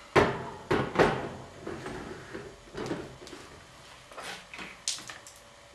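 Blender jar knocking sharply against a glass mason jar three times in the first second as it is emptied into it, then lighter clinks and clatter as the blender jar is set back on its base.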